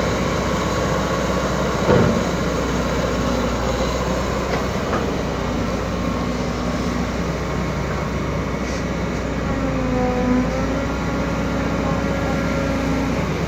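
Caterpillar 312D hydraulic excavator running steadily, with a hydraulic whine that shifts in pitch as the boom swings and lowers, and a single knock about two seconds in.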